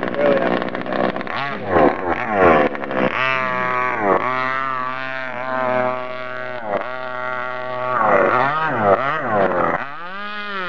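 RC speedboat's engine running hard as the boat races across the water, its pitch rising and falling repeatedly and holding steady at high revs for about three seconds in the middle.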